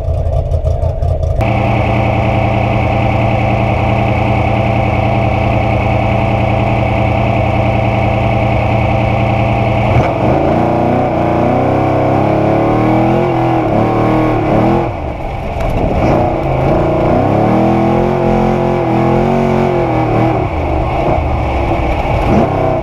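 Trophy Truck's 900-horsepower race engine heard from inside the cab at speed, holding steady high revs for several seconds. About halfway through, the revs start to rise and fall repeatedly with the throttle, with brief dips.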